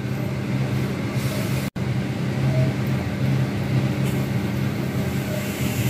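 A steady low machine hum with a few level low tones over a faint even hiss, cut off for an instant a little under two seconds in.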